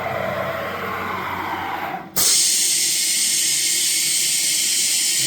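Compressed air hissing at the CNC router's tool change. A softer rushing noise gives way abruptly, about two seconds in, to a loud, steady, high hiss.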